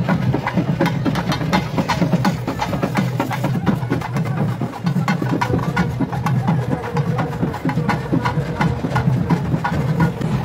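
Festival procession drumming: a fast, driving run of sharp drum strikes.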